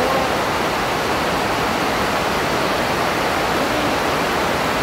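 A steady, even rushing noise with no speech in it.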